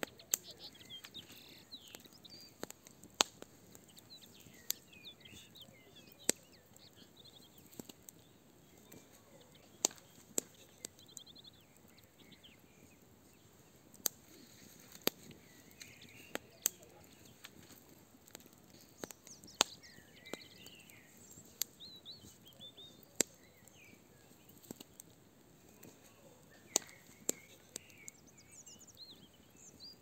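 Fire burning in a barbecue brazier, crackling with sharp, irregular pops every second or two. Small birds chirp and sing in the background.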